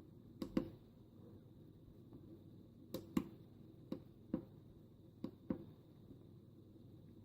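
A series of short, sharp clicks and knocks, several in quick pairs, from handling the microphone plug and the small USB sound-card adapter.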